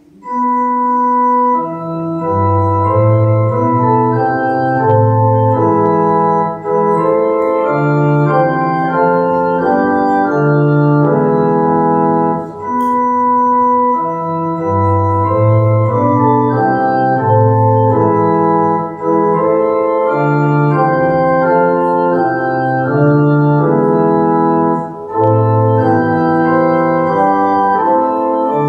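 Organ playing a slow prelude in held, sustained chords, starting abruptly and pausing briefly between phrases about every six seconds.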